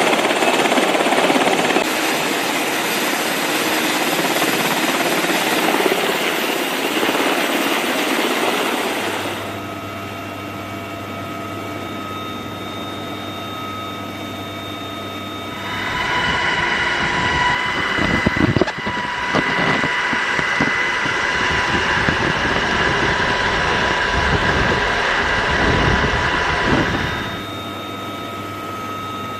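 Helicopter running: a steady turbine whine with low rumbling surges, changing in level at cuts about 9 s and 16 s in and again near the end.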